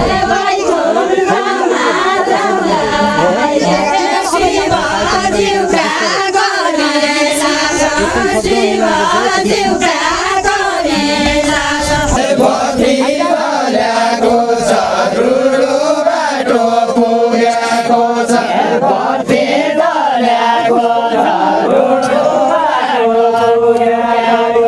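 Group of villagers singing a deuda, a Far-western Nepali folk song, in unison without instruments: many voices chanting a wavering, repeating melodic line. A low rumble sits under the singing for roughly the first half, then drops away.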